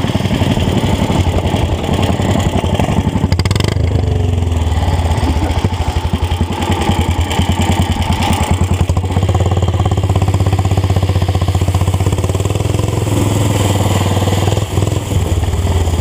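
Racing lawn tractor's small engine running hard and steadily at high revs as the tractor drives along.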